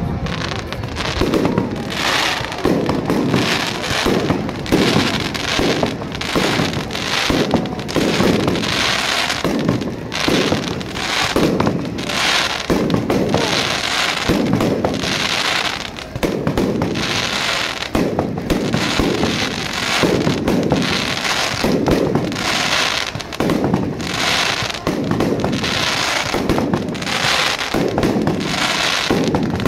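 Aerial firework shells bursting in a continuous barrage, a bang every second or so, overlapping with the crackle of the stars.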